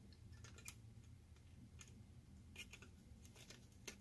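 Near silence broken by a few faint, scattered clicks: a metal tool and the circuit board knocking lightly against each other as a through-hole resistor is levered off while its solder is heated.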